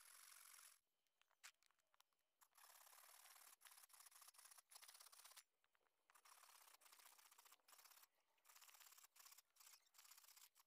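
Hand saw cutting through a round wooden stick, faint, in a series of rasping strokes about a second long with short pauses between them.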